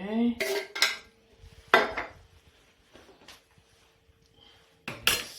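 Spoon clinking and scraping against a dish of food being mixed: a few sharp knocks, the loudest about two seconds in and another near the end, over a faint steady hum.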